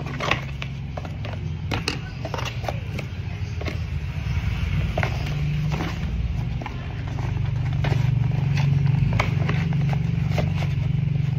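Scattered clicks and rustles of objects being handled, over a steady low hum that grows a little louder about seven seconds in.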